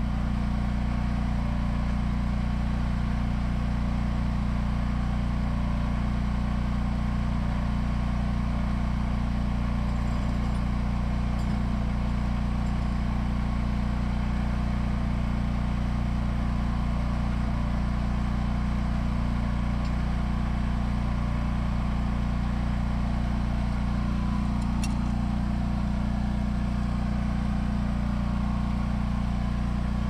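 An engine running steadily with an even low drone that does not change.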